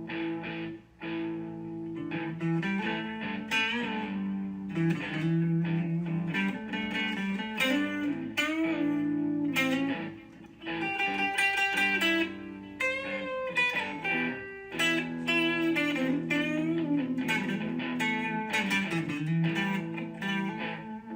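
Background music led by plucked electric guitar.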